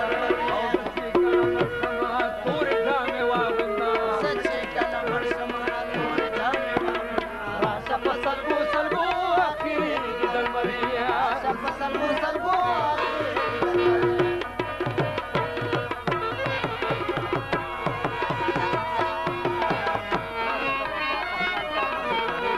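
Instrumental passage of Pashto folk music: a melody on a long-necked plucked string instrument over tabla drumming, with the tabla strokes growing denser in the last several seconds.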